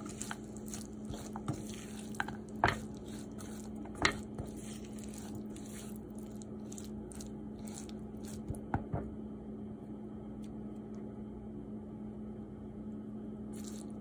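Silicone spatula stirring and turning moist flaked tuna in a frying pan: soft squishing with scattered scrapes and knocks, the sharpest about three and four seconds in and again near nine seconds, fewer after that. A steady low hum runs underneath.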